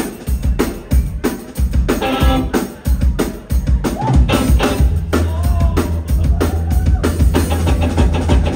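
Live rock band playing the start of a song: a drum kit hitting busily under electric guitars, with the electric bass coming in steady and full about four seconds in.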